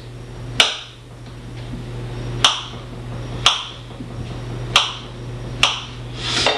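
Kitchen knife cutting sausage into blocks on a plate, with a sharp click of the blade striking the plate five times at uneven intervals over a steady low hum.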